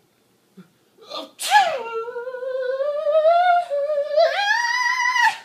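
A man's sneeze that turns into one long sung note. After a short intake of breath, the sneeze bursts out about a second and a half in and is drawn out into a held vocal tone. The tone slowly rises, steps up higher near the end, then stops abruptly.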